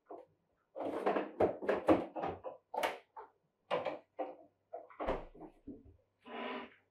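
Kitchen handling noises: a quick run of knocks and clatters as items are moved about in an open refrigerator, a heavier low thud about five seconds in like the fridge door shutting, then a short rustling scrape near the end as a wall cabinet is opened.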